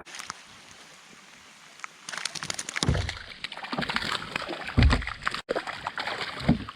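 Rain drops tapping on the kayak and camera, with water sloshing; the tapping thickens into dense irregular ticks about two seconds in. Three dull thumps come at about three, five and six and a half seconds in.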